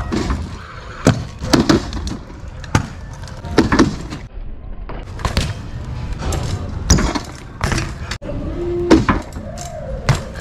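A BMX bike ridden on concrete: rolling with repeated sharp clacks and thuds from hops and landings, spaced irregularly about a second apart, over a steady low rumble.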